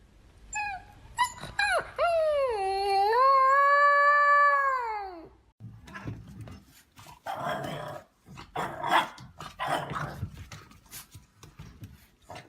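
A dog howling, its pitch bending down and back up, for about five seconds. Then a run of short, rough grumbling whimpers.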